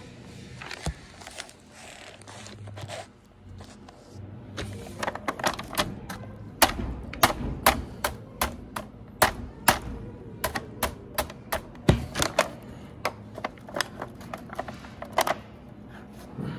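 A mallet tapping the copper coils of a 250 HP three-phase electric motor's stator during rewinding, to seat and shape them. After a few light knocks, a run of sharp, irregular taps begins about four seconds in, two or three a second, and stops shortly before the end.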